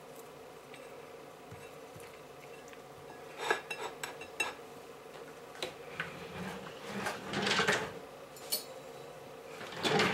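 Cutlery clinking and knocking against dishware: a few separate clinks from about three seconds in, then a longer run of scraping and clatter about seven seconds in.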